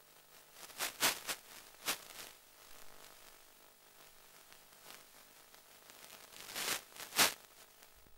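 Hissing static on an analog FPV video receiver's audio channel: a faint steady hum with short bursts of hiss about a second in, at two seconds, and a louder cluster near the end.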